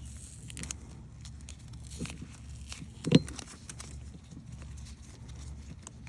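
Hand assembly of a battery power connector: scattered small clicks and taps as parts are handled, with one sharper knock about three seconds in, over a low steady hum.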